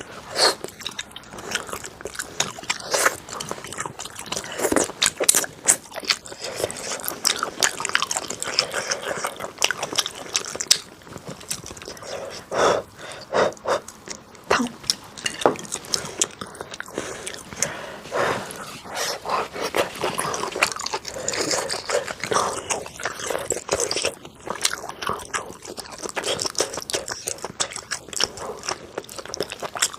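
Close-miked eating: repeated bites and chewing with crisp crunches, a dense irregular run of short clicks and crackles.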